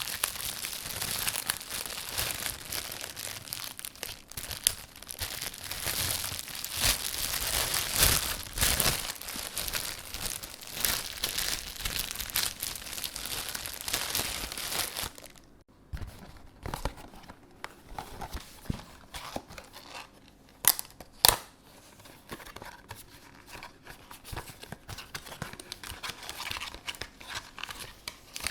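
A plastic bread bag being opened by hand, with dense continuous crinkling. Then a cardboard box of individual instant-coffee sachets being opened: sparser rustling and clicks, with two sharp snaps about five seconds into it.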